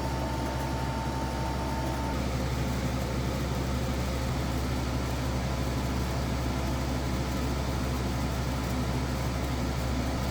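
EcoFlow Wave portable air conditioner running steadily, compressor on and fan at its highest setting, giving a constant hum and rush of air. A thin steady tone in the mix stops about two seconds in.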